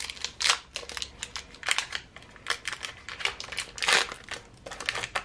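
Plastic wrapper of a block of Fimo Soft polymer clay crinkling as it is handled and unwrapped, in irregular crackling bursts.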